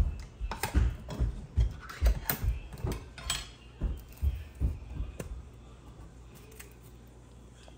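A can of condensed cream of mushroom soup knocked and tapped to empty it into a ceramic slow cooker: about a dozen irregular dull thuds and clicks over five seconds.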